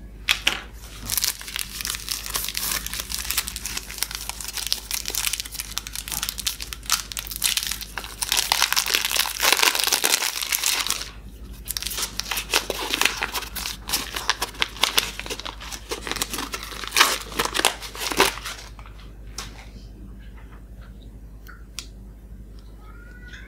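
The wrapper and silver foil of a four-finger KitKat bar being torn open and crinkled by hand, with a short lull about eleven seconds in. The crinkling stops about eighteen seconds in, and a few faint clicks follow.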